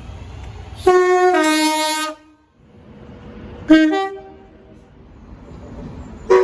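British train two-tone horns. The first sounds high then low for about a second and is cut off abruptly. A few seconds later a second short two-note blast sounds, and another blast starts right at the end, with train running noise between.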